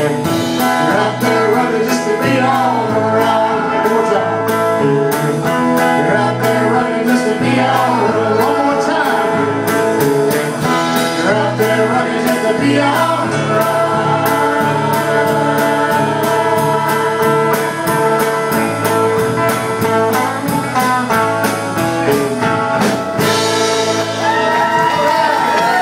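Live band playing an instrumental break of a country-folk song, with guitars over a steady beat.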